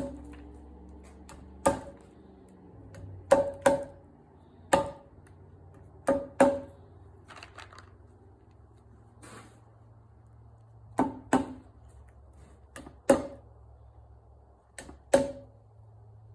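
Hammer tapping mushroom spawn dowels into drilled holes in a log: sharp taps, mostly in pairs a fraction of a second apart, each with a short ring.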